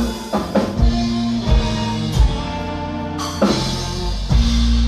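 Live band music with no singing: drum kit hits and fills on kick and snare over held chords and bass notes.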